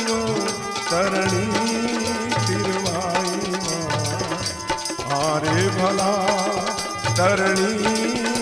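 Rajasthani devotional folk music (a chirja): a hand drum keeps a steady beat while a wavering, ornamented melody line comes and goes over it.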